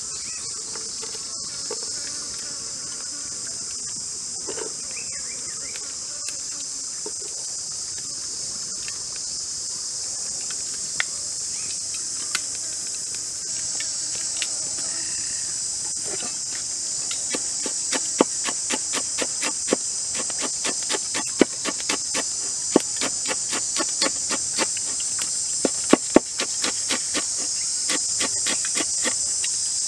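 Steady high-pitched drone of insects, crickets or cicadas, throughout. About halfway through, a knife starts chopping on a wooden board: quick, regular taps, several a second, that go on to the end.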